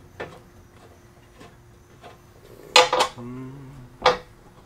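Metal clinks and clanks from bolts and a hand tool knocking against the metal swivel seat base while its bolts are being threaded in by hand. Faint ticks at first, then two sharp clanks about three seconds in and another about a second later.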